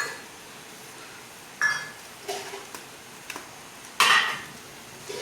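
Metal serving spoon clinking and scraping against metal cookware while biryani is dished out: four separate clinks, the second with a short ring, and the loudest, longest scrape about four seconds in.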